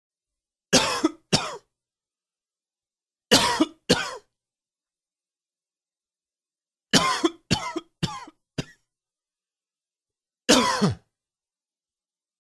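A man coughing in short bouts. He gives two coughs, then two more about three seconds later, then a run of four quick coughs, then a single cough near the end, with silence between the bouts.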